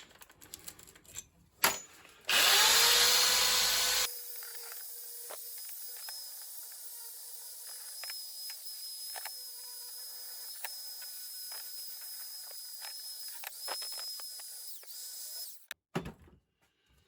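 Rotary wire brush on a power tool spinning up with a rising whine, then running steadily as it scrubs a vise part clean of old grime; it stops near the end, after a few handling clicks at the start.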